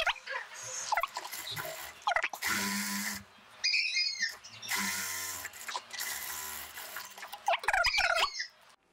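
Industrial sewing machine stitching chiffon in two runs with a steady motor hum: a short run about two and a half seconds in, and a longer one of nearly three seconds from about five seconds in. Fabric rustles before and after the stitching, and a brief high chirping falls between the two runs.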